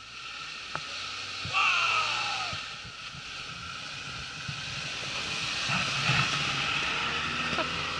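Suzuki Jimny's 660 cc turbo engine revving under load as it climbs out of deep snow and drives past close by, getting louder as it nears and loudest about six seconds in. A high whistle comes in suddenly about a second and a half in and falls in pitch over the next second: the turbo whistling.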